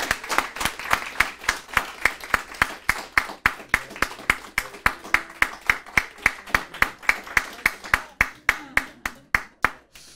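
Audience applauding, with one pair of hands clapping close and loud at about four claps a second. The applause dies away near the end.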